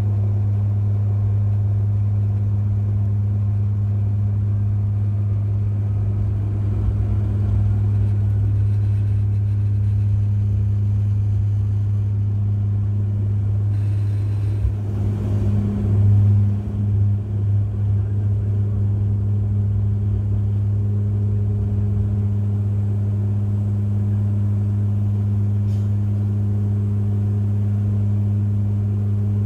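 Cabin noise of a Bombardier Dash 8 Q400 at take-off power, climbing out just after rotation: its PW150A turboprops and six-blade propellers make a loud, steady drone with a strong deep hum. About halfway through, a few seconds of rushing noise come in and the hum wavers, then the steady drone carries on.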